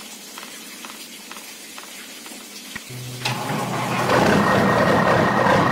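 Low hiss with a few faint ticks, then a click about three seconds in as a small DC gear motor starts up. It runs with a steady whine as it works the model dump truck's tipper bed down.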